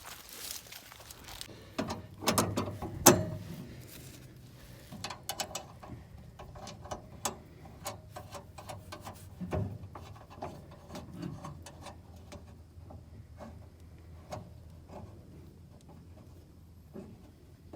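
Metal hand-tool work on a kart's steering tie rod as it is refitted. A few loud metal knocks come about two to three seconds in, then runs of quick clicks from a ratchet wrench that thin out toward the end.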